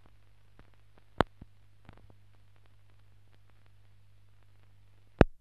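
Steady low hum with faint scattered crackle and two sharp pops, one about a second in and one near the end: the noise floor of a silent archive newsreel film with no soundtrack.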